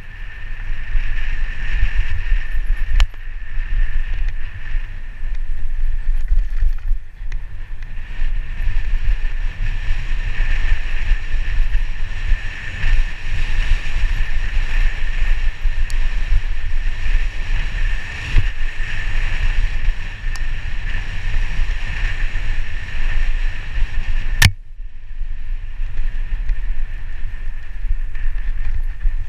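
Mountain bike running fast down a gravel and dirt forest trail, heard from a helmet-mounted camera: steady wind rush and rumble on the microphone mixed with tyre and chassis rattle. There is a sharp knock about 24 seconds in.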